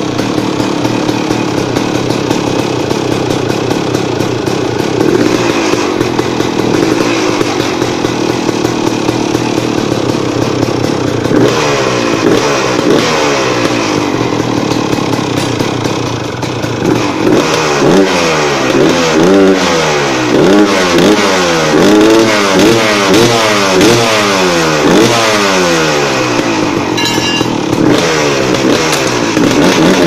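2001 Yamaha YZ250's single-cylinder two-stroke engine, heard close to the exhaust outlet. It idles steadily at first, then from about a third of the way in it is revved over and over, the revs rising and falling in quick blips about once a second.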